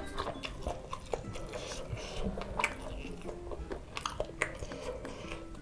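Close-miked chewing of a mouthful of food, with wet mouth sounds and scattered small clicks and crunches.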